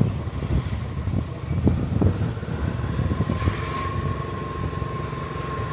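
Low vehicle rumble with irregular knocks. A short hiss comes about halfway through, and after it a steady thin high tone.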